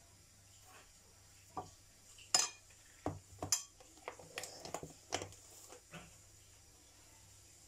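Metal spoon knocking and clinking against a glass mixing bowl as a powdery ingredient is spooned in: a string of sharp taps, the loudest about two and a half seconds in and a quick cluster around four to five seconds.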